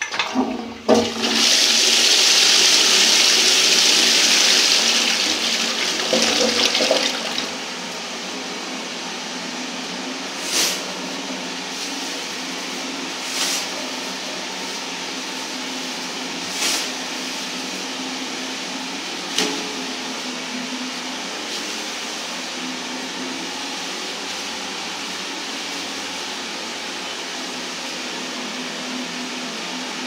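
1980s Royal Doulton Ashton toilet flushed by its push button: a click, then a loud rush of water for about six seconds, then the cistern refilling with a steady hiss and a faint hum, broken four times by a brief louder swish.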